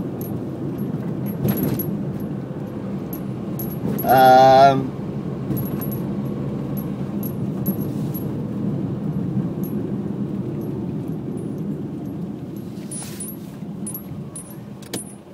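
Car engine and road noise heard inside the cabin while driving, a steady low rumble, with keys jingling lightly now and then. About four seconds in, a short, loud vocal note from the driver.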